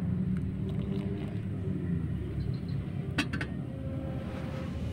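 Metal camping kettle set down on the pot supports of a portable gas stove, a single sharp clink about three seconds in, over a steady low rumble.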